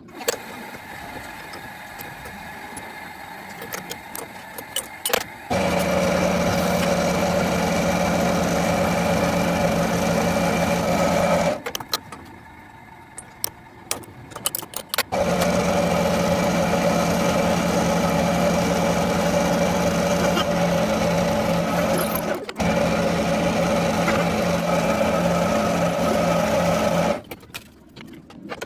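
Motor-driven metalworking machine running with a steady hum. It runs in two long stretches, each starting and stopping abruptly, with a brief break in the second. In the pauses between runs there are quieter clicks and knocks.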